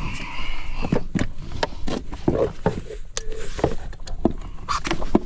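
Clicks, knocks and rattles of a bass boat's trolling motor foot pedal being handled and lifted apart, its plastic and metal parts knocking together in quick irregular strokes.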